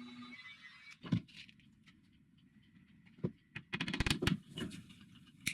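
Light knocks and taps of small wooden pieces being handled and set down: one knock about a second in, then a quick cluster of small taps and clicks toward the end.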